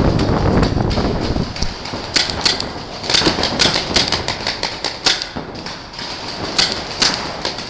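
Paintball markers firing in irregular strings of sharp pops, some close and loud, others fainter. A low rumble fills the first second.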